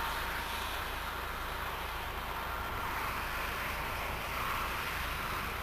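Steady road noise of a car travelling on the autobahn, with a low rumble underneath.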